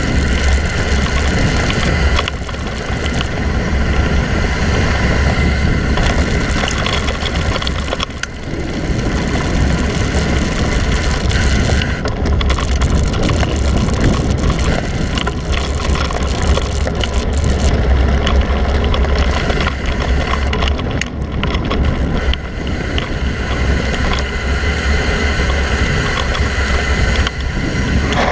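Mountain bike riding over a dirt singletrack, heard from a camera mounted on the bike: wind rumbling on the microphone, tyres crunching over dirt and the bike rattling over bumps. A steady high buzz runs through it, fading about twelve seconds in and coming back near the end.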